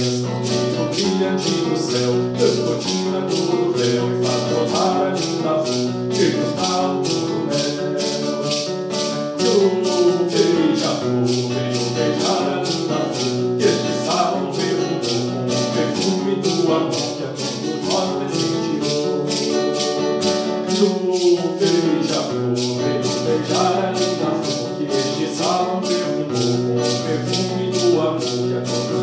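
A devotional hymn sung over acoustic guitar, with a maraca shaking a steady beat.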